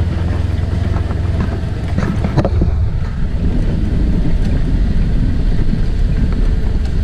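A vehicle engine running with a steady low rumble, with a few short knocks about two and a half seconds in.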